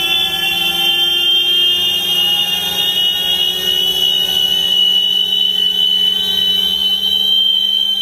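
Electric motorcycle giving off a loud, high-pitched whine that rises slowly and steadily in pitch.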